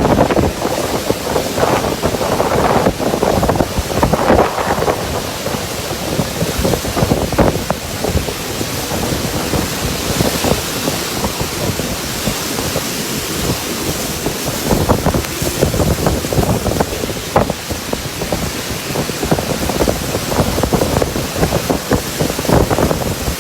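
Heavy rainstorm: a steady hiss of pouring rain with strong gusty wind buffeting the microphone, the gusts surging and easing irregularly.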